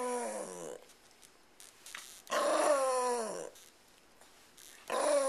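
A small lap dog growling in three drawn-out bouts, each about a second long and falling in pitch, while it is being handled and patted on the head.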